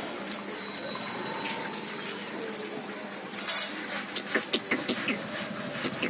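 Steady background noise with a brief rattle about three and a half seconds in, followed by a run of sharp clicks, about four or five a second, near the end.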